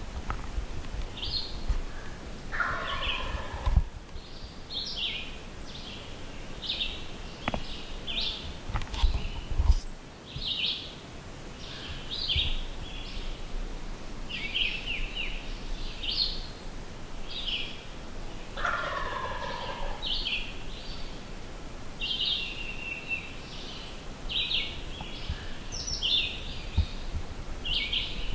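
Wild turkey gobbler gobbling twice, about three seconds in and again just before halfway, while songbirds keep up short, high, repeated chirps throughout. A few low thumps, the loudest about a third of the way in.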